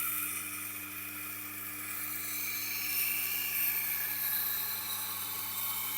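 Kitchen knife blade ground edge-leading on a Tormek's spinning grindstone, dressed to about 220–240 grit: a steady rasping hiss whose pitch drifts as the edge is pushed along the wheel, over the machine's low motor hum.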